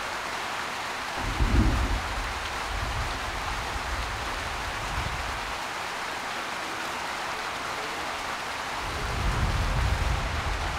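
Steady rain falling, an even hiss, with two low rumbles: one about a second in and a longer one near the end.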